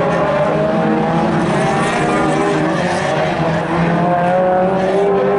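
Several Fol'Car race car engines running hard together, their overlapping tones rising and falling as the pack accelerates and lifts around the circuit.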